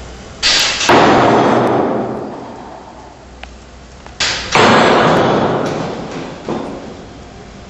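Two loud crashes about three and a half seconds apart. Each comes just after a short knock and dies away over about two seconds.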